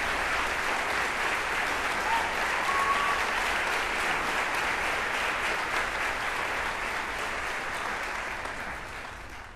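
Audience applauding steadily, dying away near the end. A brief high tone sounds over it about two to three seconds in.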